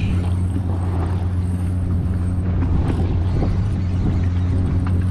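Fishing boat's machinery running with a steady low drone.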